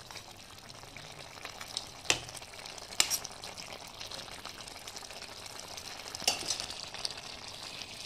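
Food frying in a pan with a steady sizzle, and a stirring utensil clicking sharply against the pan three times, about two and three seconds in and again past six seconds.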